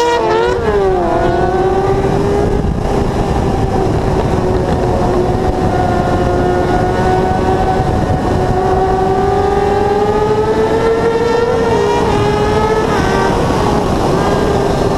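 Sport motorcycle engine held at high revs at speed, a steady high-pitched drone, with wind rushing over the microphone. The pitch swings briefly about half a second in and shifts again near the end.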